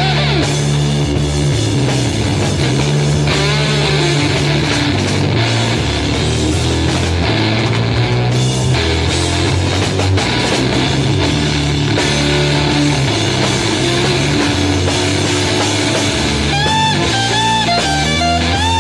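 Rock music with electric guitar, bass and drums, with a gliding lead guitar line near the end.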